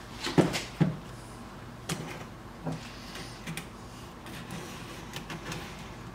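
Wood-and-PVC light housing knocking against a plywood cabinet as it is fitted into place: two sharp knocks within the first second, then a few lighter knocks and taps.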